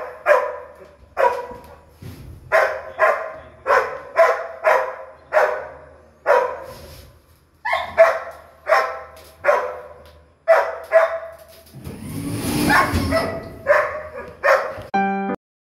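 A dog barking over and over, about one sharp bark every half second to second. A brief rushing noise joins it about twelve seconds in.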